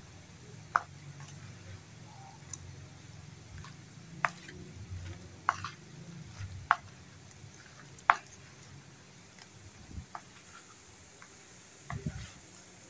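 A plastic spoon stirring raw chopped frog meat and spices in a plastic basin: sharp, irregular clicks of the spoon against the bowl, roughly one every second or two, over the soft sound of the wet mixture being turned.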